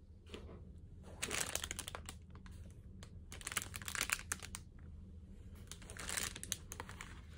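Plastic retail packaging handled by hand, crinkling and ticking in three short bursts: about a second in, around three to four seconds in, and about six seconds in, over a faint low hum.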